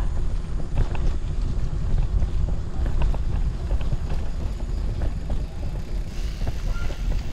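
Wind buffeting the microphone of a bicycle-mounted or rider-worn camera while riding, with tyre rumble from a rough concrete lane and a few sharp clicks from the bike going over bumps.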